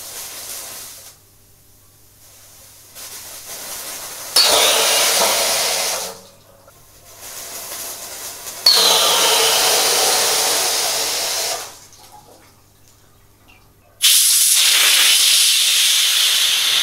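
Safety valve on a homemade steam boiler popping open three times under gas pressure from a fire extinguisher. Each time it gives a loud hiss of escaping pressure lasting two to three seconds, starting with a short falling whistle, with fainter hissing between the blasts as pressure builds again. The valve is being set to blow off at 18 atmospheres.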